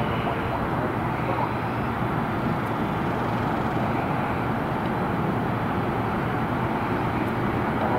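Spirit Airlines Airbus A320-family jet on final approach with landing gear down, its engines heard as a steady jet rumble and roar that grows slightly louder toward the end as it nears.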